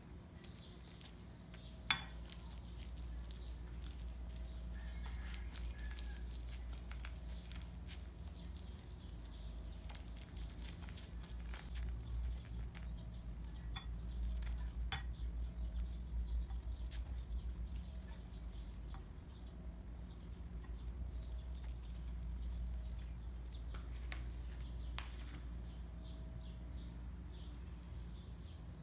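Faint scattered clicks and light taps over a low steady hum, with one sharp click about two seconds in.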